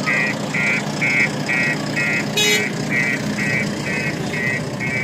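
JCB 3DX backhoe loader's alarm beeper sounding short, even beeps about twice a second over the machine's steady engine hum. About halfway through there is one brief sharp metallic sound.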